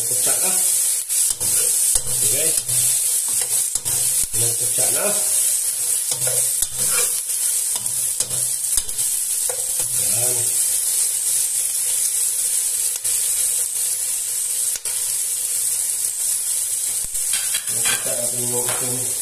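Onions, tomatoes and garlic sautéing in oil in a nonstick pot, a steady sizzle, while a metal spoon stirs them with repeated scrapes and clicks against the pot.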